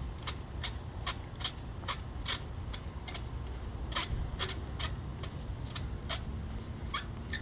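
Light, irregular metallic clicks of a socket and long extension turning a new spark plug into a 2015 Toyota RAV4's cylinder head by hand, about two or three a second, over a steady low rumble.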